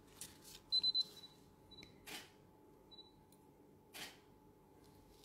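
Three quick, high electronic beeps about a second in, followed by a couple of fainter single beeps. Between them come two soft rustles of gloved hands handling the sticker sheet and tweezers.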